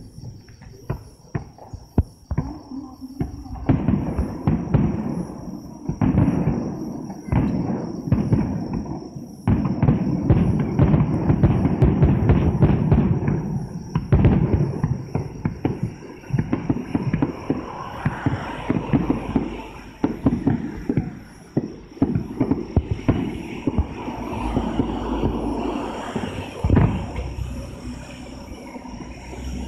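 Aerial fireworks bursting in rapid succession: a dense barrage of bangs and crackling, heaviest from about ten to fourteen seconds in.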